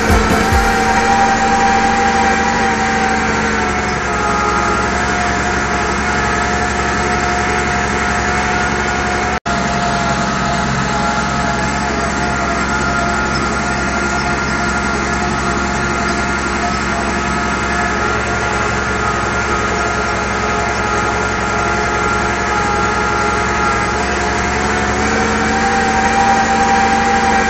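Case IH 1056 XL tractor's six-cylinder diesel running steadily under load while pulling harrows across a field, heard from inside the cab. The engine note dips slightly about four seconds in and rises again near the end, with a split-second break about nine seconds in.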